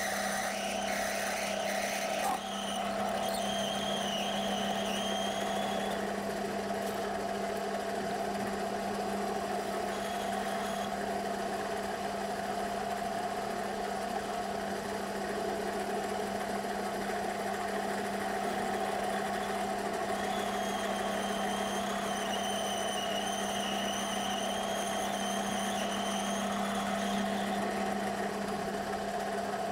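Metal lathe running steadily while a cutting tool works the spinning metal workpiece, throwing off curled swarf. The cut adds a rough scratchy edge for the first two seconds or so, then a faint wavering high whine that comes and goes.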